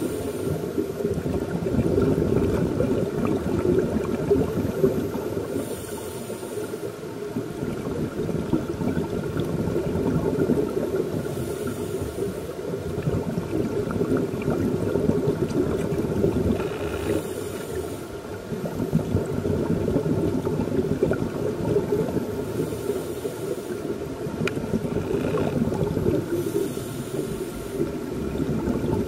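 Scuba breathing heard underwater: the bubbling rumble of exhaled air from open-circuit regulators, broken about every five to six seconds by a brief high regulator hiss as a breath is drawn in.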